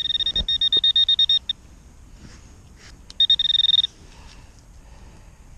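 Handheld metal-detecting pinpointer beeping rapidly at one high pitch as it is held against a clod of soil, signalling a metal target, a coin, inside it. There are two runs of quick beeps, the second shorter and coming about three seconds in.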